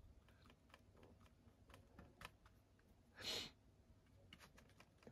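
Near silence: faint small taps and scratches of a paintbrush working acrylic paint onto a cardboard box, with one short soft hiss about three seconds in.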